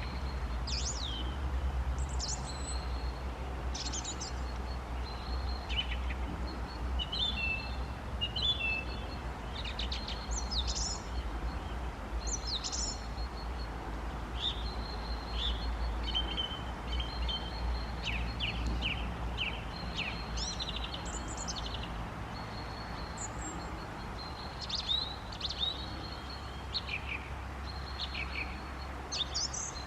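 Songbirds calling: a run of short chirps and whistled notes, some repeated in quick series, over a low steady rumble that eases about two-thirds of the way through.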